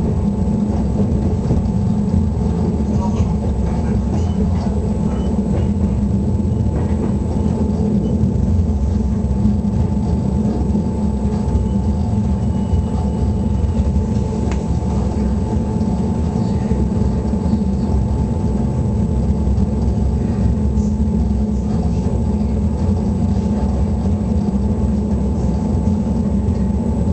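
Electric train running along the track, heard from inside the driver's cab: a steady low rumble with a faint steady whine over it.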